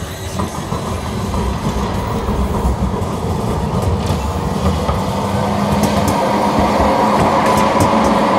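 Articulated low-floor tram running along street track, getting louder as it comes closer. A steady whine strengthens from about halfway, over a low rumble, with a few sharp clicks.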